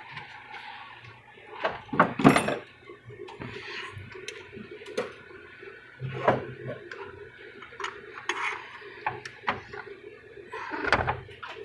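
Irregular metal clunks and clatter as an automatic-transmission torque converter is handled and worked onto the transmission input shaft. The loudest clatter comes about two seconds in.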